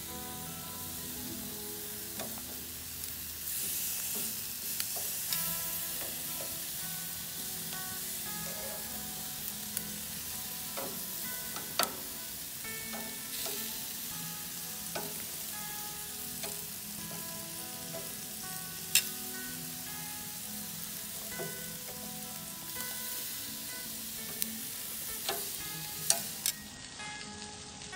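Marinated chicken pieces sizzling on a hot gas grill, a steady hiss, with a few sharp metallic clicks of tongs against the grates as the pieces are turned.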